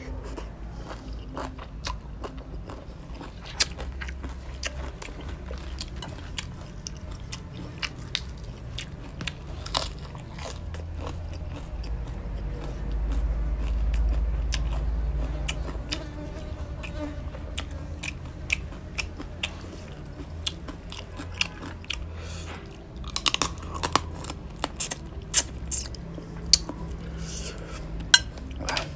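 Close-up chewing and biting of raw crab with papaya salad, with many sharp crunches and cracks of crab shell that come thick and fast near the end. A low rumble swells for a few seconds around the middle.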